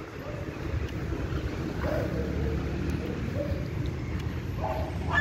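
Steady rumble of city street traffic, with a dog starting to bark near the end.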